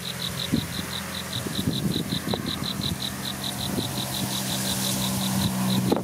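An insect trilling in short, even pulses, about seven a second, high-pitched and steady. Under it runs the low, steady hum of a distant motor, growing louder in the second half.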